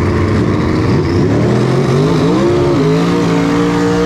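Pickup truck's engine revving up and held at high revs during a burnout, its rear tyres spinning and smoking. The pitch climbs from about a second in, then holds steady.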